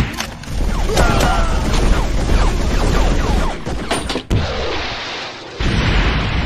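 Explosion sound effects from a film: a sudden blast at the start runs on into a loud, deep rumble. A second sudden blast comes about five and a half seconds in.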